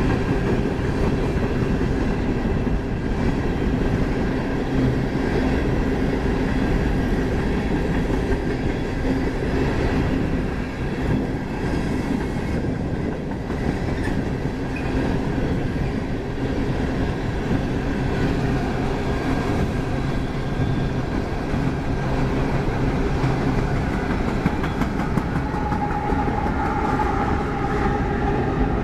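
Empty coal hopper cars of a freight train rolling past close by: a steady rumble with the clickety-clack of wheels over the rail joints. A steady higher tone joins in near the end.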